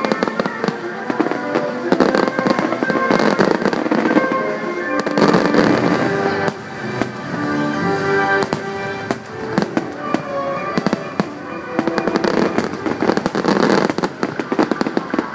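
Aerial fireworks shells bursting and crackling in quick succession, densest a few seconds in and again near the end, over show music from loudspeakers.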